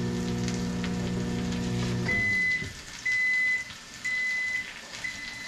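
Microwave oven running with a steady hum that cuts off about two seconds in and winds down, then its end-of-cycle beeper sounding four times about a second apart: the instant potatoes inside have cooked long enough that the cook reckons they boiled over. Food sizzles in a frying pan throughout.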